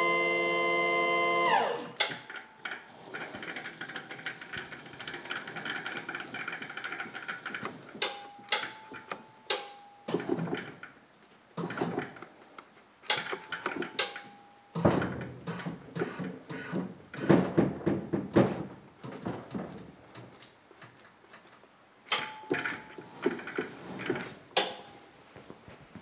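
Electric walk-behind stacker forklift: its motor whine drops in pitch and stops about a second and a half in. After that come rattles and knocks as the loaded forklift is jogged toward the truck bed, with brief steady whines from the motor several times.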